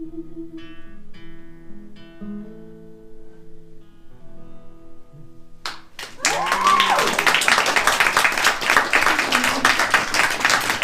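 An acoustic guitar plays the last few notes of a song and lets them ring out. About six seconds in, the audience breaks into loud applause with a whoop, which runs on much louder than the guitar.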